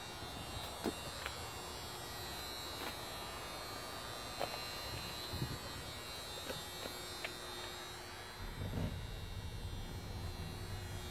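A steady faint hum and buzz, with scattered light clicks and knocks from the handheld camera being moved around. A low rumble comes in about eight and a half seconds in.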